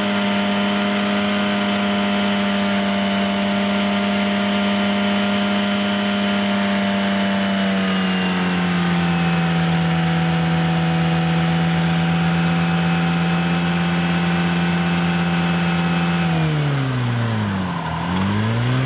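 Ford Fiesta's four-cylinder engine running flat out in gear, spinning the bare front brake disc with the wheel off. It holds a steady high note, drops to a lower steady pitch about eight seconds in as the brake loads it, then near the end the revs fall sharply and climb again twice.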